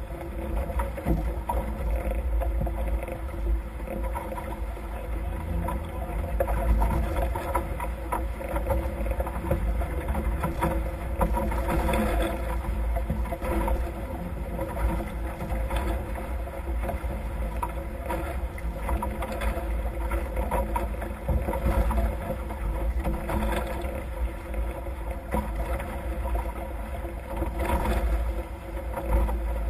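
Nacra F18 sailing catamaran under way at speed: a steady rush of water along the hulls and spray at the bows, with low wind rumble on the microphone.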